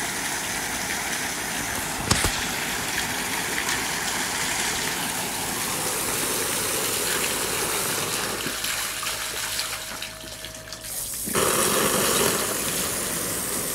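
Steady rushing hiss of a strong water jet spraying from the hose nozzle of an Einhell GE-PP18-RB Li cordless submersible pump, the spray splashing onto pool water. A sharp knock comes about two seconds in. The rush dips briefly after ten seconds and comes back louder.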